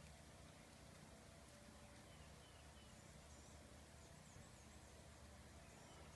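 Near silence with a low steady hum, and faint, high bird chirps in a run of short calls from about two seconds in.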